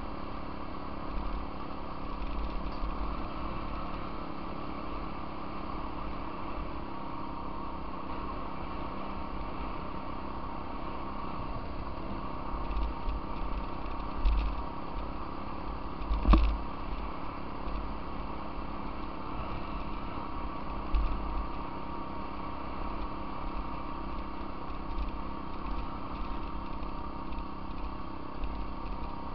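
Off-road vehicle engine running steadily while riding a rough dirt trail, with scattered thumps and knocks from bumps; the loudest, a sharp knock, comes about 16 seconds in.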